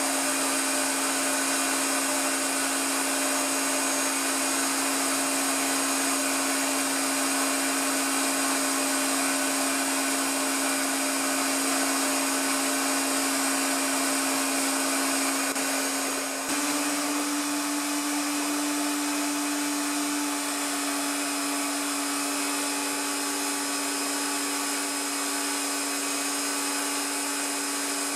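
Dyson handheld vacuum running steadily as dust extraction beside a small CNC lathe in operation: a constant motor whine over a rushing hiss. About sixteen seconds in it dips briefly, then the whine settles a little higher in pitch.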